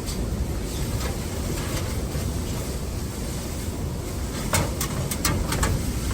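Blizzard wind buffeting the microphone in a steady low rumble, with a quick run of sharp clicks or knocks about four and a half seconds in.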